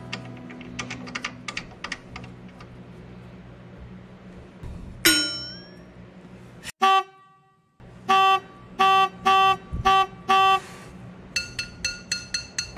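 Edited-in sound effects: a sudden sound falling in pitch about five seconds in, a brief dropout, then six short horn-like toots and a faster run of higher beeps. They stand in for swearing over a failed brake light switch install.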